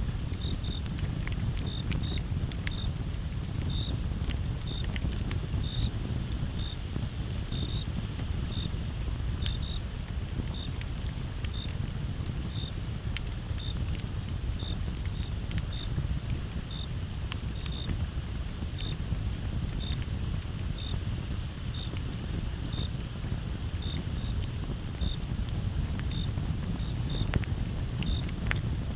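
Campfire crackling, with scattered sharp pops and a low rumble of burning wood, over a steady high cricket trill and a second cricket chirping about once or twice a second.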